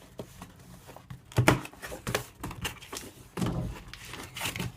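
Handling noise: a few separate thunks and knocks, the loudest about a second and a half in and another around three and a half seconds in.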